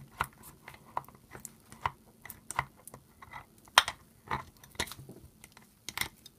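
Metal gears in the gearbox of a vintage Fein automatic tapper clicking and clacking irregularly as they are wiggled and worked loose by hand, with one sharper clack a little past the middle.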